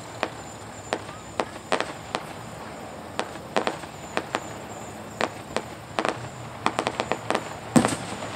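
Aerial firework shells bursting in the distance: an irregular string of sharp bangs and cracks, several close together around the middle and the loudest near the end, over a steady background hiss.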